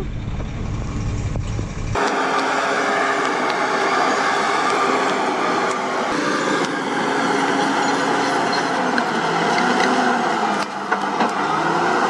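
A SHACMAN dump truck's diesel engine running as it drives through mud, with wind on the microphone. About two seconds in it changes suddenly to a bulldozer's diesel engine running steadily, heard thin with no bass.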